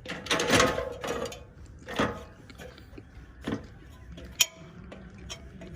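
A scraping rustle about a second long, followed by three separate sharp knocks and clicks.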